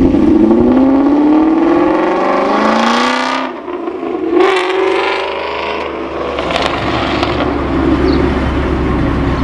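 Supercharged 2015 Ford Mustang GT's 5.0 V8 accelerating hard away, its engine note rising in pitch for about three seconds. It dips briefly at a shift and climbs again, then settles into a steadier drone.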